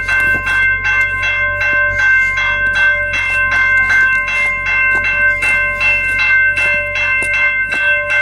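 Railroad crossing warning bell ringing steadily at about four strikes a second, each strike leaving a ringing tone that carries on to the next.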